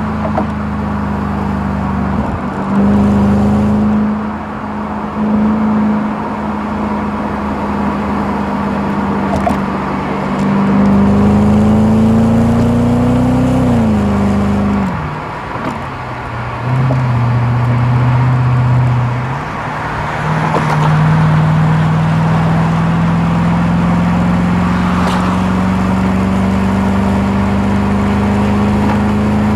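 Audi B7 S4's 4.2-litre V8 through a Milltek exhaust with resonator, heard from the rear of the car, pulling at low revs with a steady exhaust drone that slowly rises in pitch. About halfway the revs drop sharply at an upshift and the note runs lower and quieter for a few seconds. Then it climbs steadily again.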